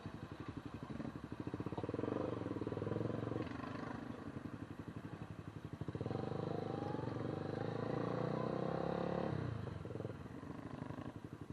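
A small engine running with a fast, even beat, getting louder twice: from about two seconds in to three and a half, and again from about six to nine seconds.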